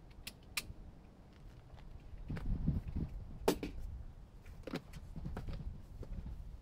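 Cardboard shipping box being opened and its packaging handled: a few sharp clicks and knocks over low rustling and bumping.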